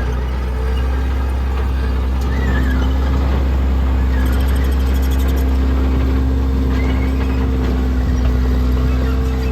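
Case 445CT compact track loader's diesel engine running steadily under work, a constant low drone, with a few faint high squeaks over it.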